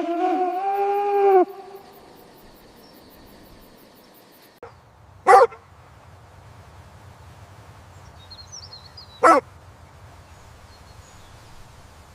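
A dog calling: one drawn-out pitched call at the start, then two single short barks about four seconds apart.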